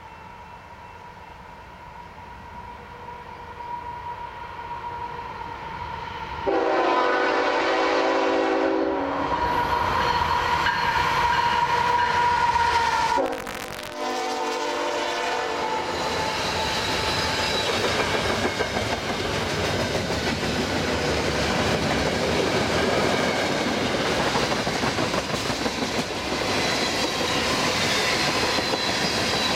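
Freight train locomotives approaching, their sound building, then the air horn sounds a long chord of several seconds. After a brief break it gives a shorter second blast. Freight cars then roll past close by, clattering steadily over the rail joints.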